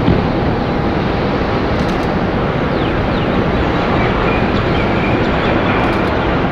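Airbus A330-300 twin-engine jet airliner on short final, flaring just before touchdown: loud, steady jet engine noise.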